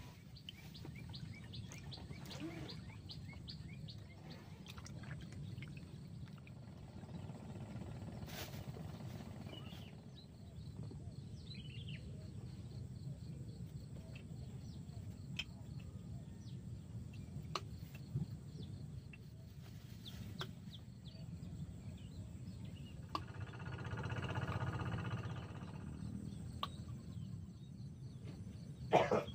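Faint open-air ambience over still water: a steady low rumble with distant bird calls and scattered small clicks, and a sharp knock near the end.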